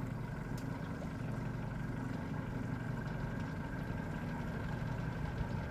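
Boat's 115 horsepower Yamaha outboard motor idling steadily.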